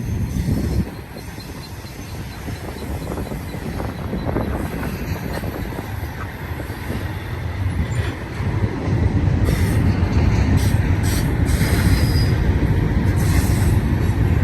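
Intermodal freight train rolling past, a steady low rumble of wheels on rail that grows louder about nine seconds in.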